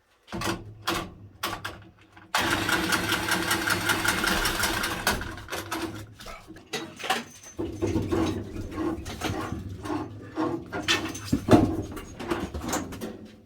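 Water hissing and bubbling through the leaking coil of an indirect water heater, as house water pressure pushes through a hole in the coil into the depressurized boiler loop. A steady loud hiss starts abruptly about two seconds in and lasts about three seconds, then gives way to irregular gurgling and knocks.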